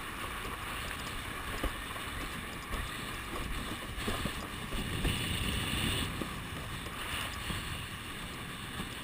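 Windsurf board sailing across choppy water: wind buffeting the microphone over the rushing and slapping of water along the board. It grows a little louder for a second or two around the middle.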